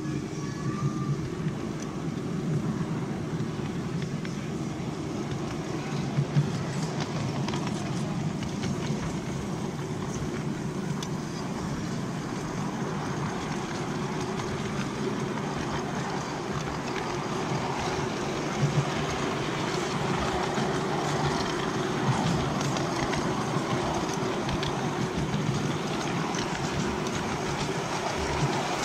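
Ride-on miniature railway train running along its track, heard from the train itself: a steady rumble of wheels on rails with a few sharp clicks.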